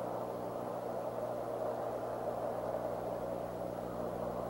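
Steady rushing background noise with a constant low electrical hum from the nest camera's microphone; no calls or distinct sounds stand out.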